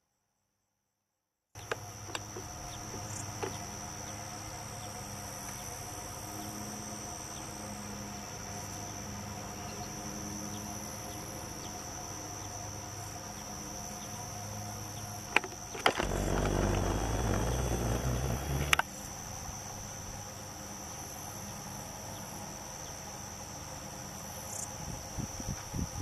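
Insects trilling steadily in a continuous high-pitched chorus, starting after a moment of silence. About two-thirds of the way through, a louder low rumble lasts a few seconds, opening and closing with sharp clicks.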